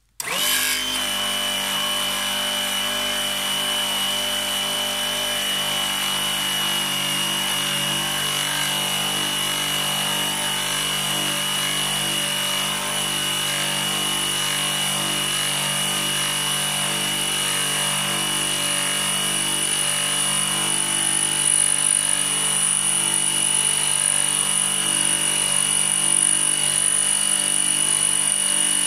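Small benchtop metal lathe starting up and running steadily, its motor and drive giving a constant high whine over a low hum, while a high-speed-steel tool takes a turning pass along a metal bar. The sound grows slightly louder about two-thirds of the way through.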